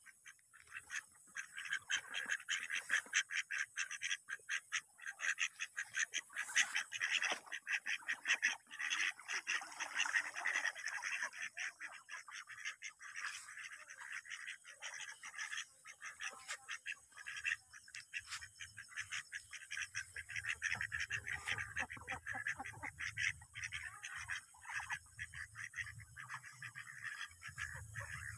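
A flock of domestic ducks quacking in dense, rapid chatter that starts about a second in and is busiest in the first half. A low hum joins about two-thirds of the way through.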